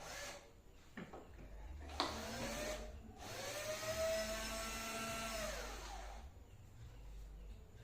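Hand-held electric drill motor whining in two runs: a short burst with a sharp click about two seconds in, then a longer run of about three seconds that spins up, holds steady and winds down, likely driving screws out while a light fixture is dismantled.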